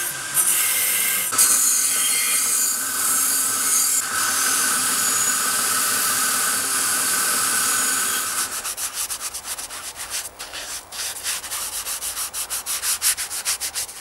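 Motor-driven wire brush wheel scrubbing the metal of an old blowtorch: a harsh, steady scratching over the wheel's whine. Past the middle it breaks into rapid pulsing scratches, about four or five a second, as the part is worked on and off the wheel.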